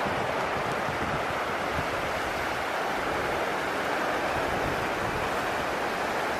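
Steady rushing wind, an even noise with no distinct events.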